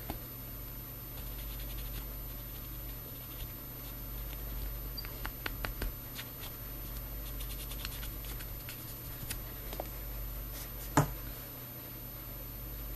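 Cotton swab rubbing metal polishing powder onto a small model radiator part: faint, irregular scratching with a few light clicks, and one sharp tap about eleven seconds in, over a steady low hum.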